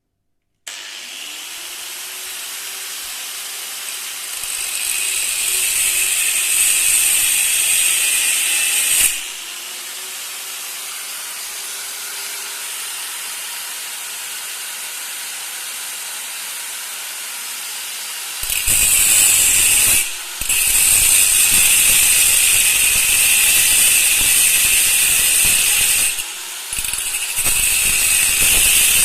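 A handheld power tool switched on several times, its motor whining up to speed each time, then working metal with a loud, hissing rasp. It runs in loud stretches with a quieter steady spell between them and brief stops near the end.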